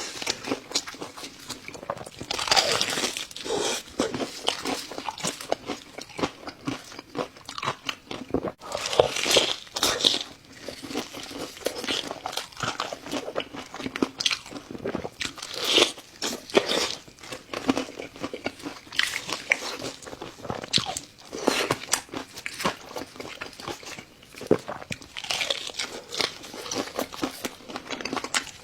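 A person biting and chewing crunchy food: a continuous run of crisp crunches and chewing sounds in irregular bursts.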